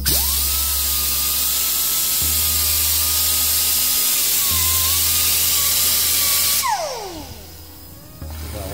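Small die grinder with an abrasive disc running at full speed, cleaning the brake caliper's wire spring clip: a loud hiss with a steady whine. After about six and a half seconds it is let off and spins down with a falling whine.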